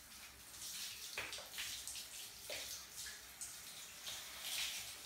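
Handheld shower head spraying water onto a golden retriever's wet coat, an uneven hiss with a few louder splashes as the spray and a hand move over the fur.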